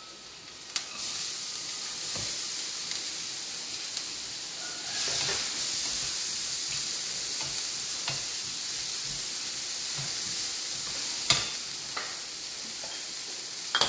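Chopped vegetables frying in butter and garlic paste in a stainless steel frying pan. The sizzle starts about a second in as the vegetables go in and grows louder about five seconds in, while a wooden spatula stirs them and now and then knocks against the pan.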